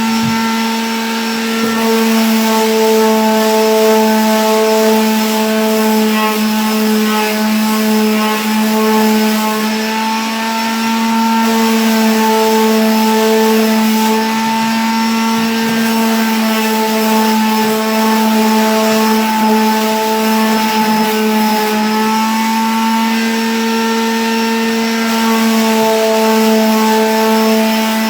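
Electric sander running steadily at a constant pitch, sanding down layers of primer on a canvas to make the surface smooth.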